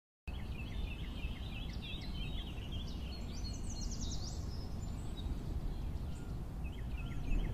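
Small birds chirping in quick, repeated short notes over a steady low background rumble. The chirping thins out in the middle and picks up again near the end.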